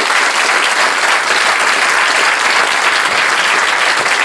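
Audience in a theatre applauding steadily: many hands clapping at once.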